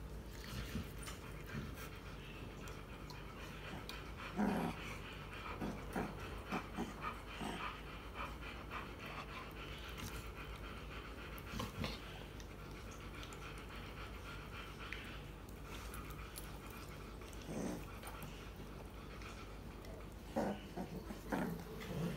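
An American bulldog and a puppy play-fighting, panting, with several short growls scattered through; the loudest come about four seconds in and near the end.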